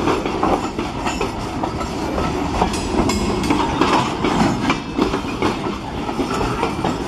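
Freight train of steel gondola cars rolling past close by: a steady rumble and rattle with many irregular clacks and knocks as the wheels cross rail joints.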